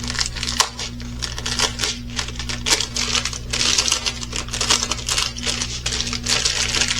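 Small plastic bags of diamond-painting drills being handled: irregular crinkling with light clicking and rattling.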